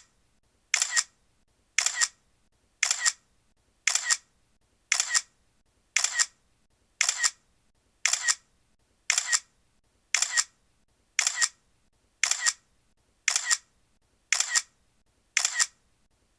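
Camera shutter clicking over and over, about once a second, each release a quick double click.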